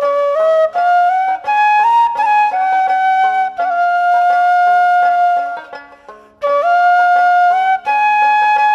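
Background music: a flute plays a slow melody of long held notes over a steady low drone, with a short break about six seconds in.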